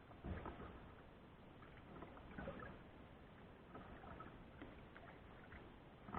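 Faint kayak paddling: soft splashes and drips from the paddle blades, a stronger stroke about two and a half seconds in.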